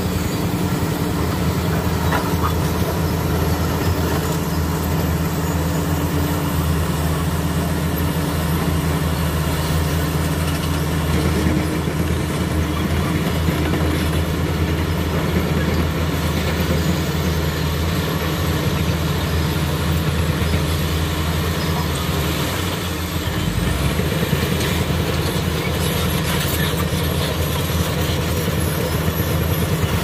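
Komatsu D85E-SS crawler bulldozer's diesel engine running steadily under load as the dozer pushes broken rock with its blade, easing off briefly about three-quarters of the way through.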